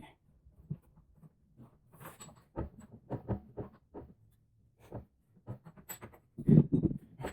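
Irregular clinks and knocks of metal parts and hand tools being handled while working on a car's front suspension, with a louder cluster of knocks near the end.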